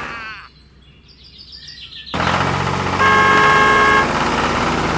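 Added vehicle sound effects: a short chirpy warble, then a loud engine rumble starting about two seconds in, with a horn honked and held for about a second in the middle of it.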